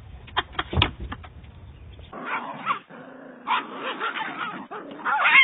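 A dog barking and yipping in short calls, loudest near the end, after a few sharp knocks in the first second.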